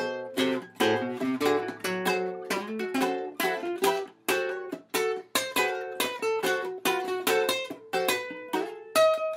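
Ukulele played without singing: a run of plucked notes and chords, a few a second, each ringing and then fading.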